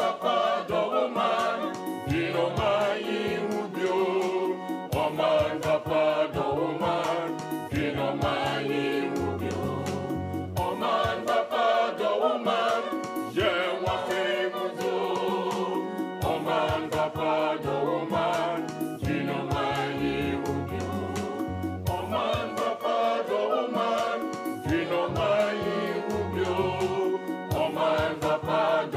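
Background music: choir singing over a steady bass line, gospel in style.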